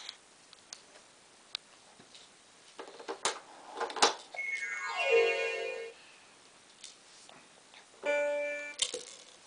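Electronic toy sounds from a Fisher-Price baby activity walker being handled: a couple of plastic knocks, then a synthesized tone that slides down in pitch over about a second and a half, and a short steady electronic chord near the end.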